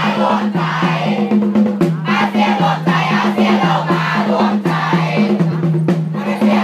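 A large cheering section of students singing a cheer song together in unison over a steady drumbeat.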